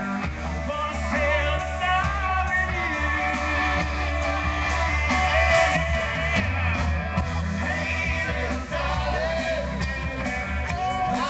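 Live rock band playing with a singer, a heavy bass line under guitar and vocals, picked up from among the audience by a phone's microphone.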